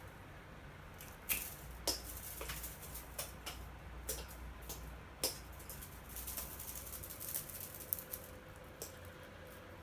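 A cat toy rattling and clicking in irregular knocks and ticks as the cat plays with it, starting about a second in.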